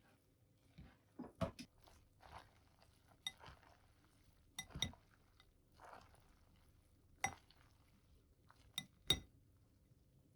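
A utensil clinking and scraping against a bowl while pasta is mixed with sticky natto: about eight sharp clinks that ring briefly, at uneven intervals, with softer squelching and scraping between them.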